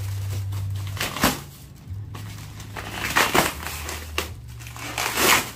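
Styrofoam packing being broken and pulled apart by hand in irregular bursts, the loudest about three seconds in and near the end, over a low steady hum.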